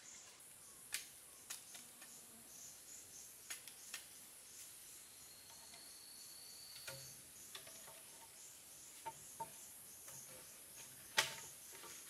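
Insects calling: a steady high buzz with a softer pulsing chirp about three times a second. A few sharp clicks or taps come through, the loudest near the end.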